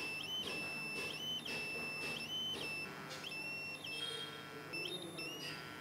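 Electronic buzzer of a homemade light/laser sensor built from a computer mouse, giving a high steady tone that cuts in and out several times as the sensor is triggered.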